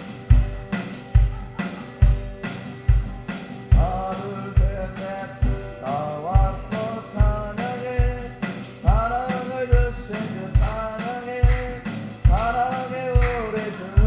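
A man sings while strumming an acoustic guitar, with a boy keeping a steady beat on an electronic drum kit, the bass drum landing a little over once a second. The singing comes in about four seconds in.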